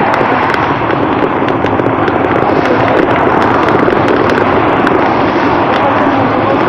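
Steady rush of wind and road noise on the microphone of a bicycle riding along a highway shoulder, with constant crackling all through it and passing car traffic.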